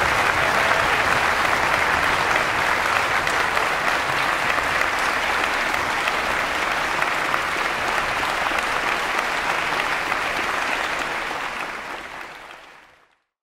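Audience applauding steadily, then fading out near the end.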